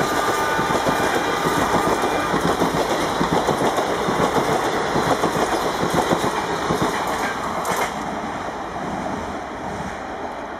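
Coaches of a passenger express train rushing past at about 100 km/h, with a dense rattle of wheels over the rails. The locomotive's horn fades out in the first second or so, and the noise drops away about eight seconds in as the rake passes.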